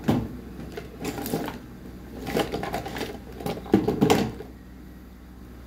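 Four short bursts of clicking and rattling from small objects being handled on a workbench. The loudest comes about four seconds in.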